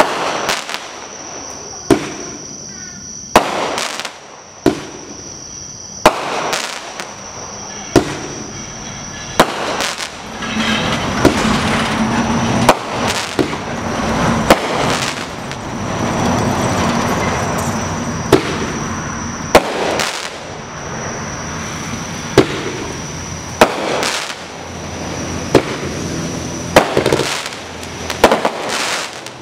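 A 500g multi-shot consumer fireworks cake firing: sharp shots and bursts roughly every second and a half. Through the middle, a continuous hissing crackle fills the gaps between the shots.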